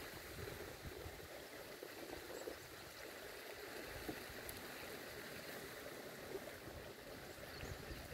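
Geyser erupting: a faint, steady rush and splash of hot water spouting and falling back.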